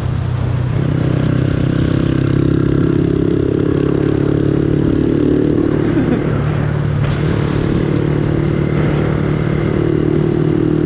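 Yamaha Sniper 135 motorcycle fitted with a Replica Pro aftermarket exhaust pipe, running steadily at high road speed. The engine note lets off briefly about six seconds in, then picks back up.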